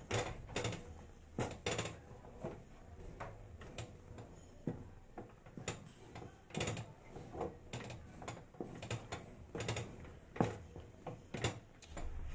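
Wooden stick stirring and beating thick finger-millet dhido in a metal karahi: irregular knocks and scrapes of wood on the pan and the heavy dough, about one or two strokes a second.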